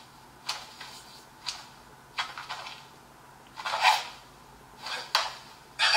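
A handful of short knocks and scuffs at irregular intervals, one slightly longer near the middle, over a faint steady hum.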